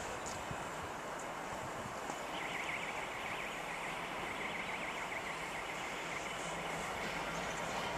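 Class 66 diesel locomotive approaching slowly with its engine running, a low steady rumble under track noise. About two seconds in, a high-pitched fluttering squeal joins in and carries on.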